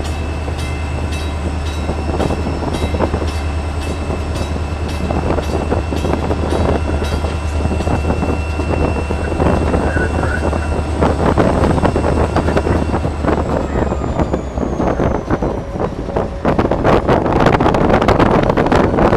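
Inside the cab of an EMD SD40-2 diesel-electric locomotive under way: the 16-cylinder two-stroke engine's steady drone and the wheels on the rails, with a high whine that falls away about two-thirds through. Wind through the open cab window grows louder over the last few seconds.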